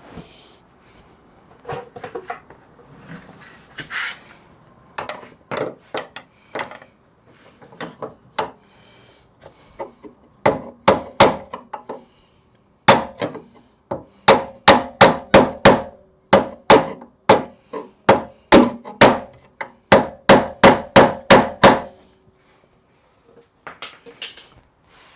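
Hammer strikes on a Jeep XJ door hinge pin. Scattered lighter taps at first, then a long run of hard, evenly spaced blows, about two to three a second, that stops shortly before the end.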